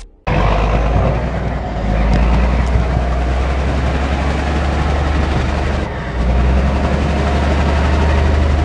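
Toyota Land Cruiser HDJ80's 4.2-litre turbo-diesel engine running hard under load with a deep steady rumble as the truck crawls through a deep rut. The sound dips briefly about six seconds in, then comes back up.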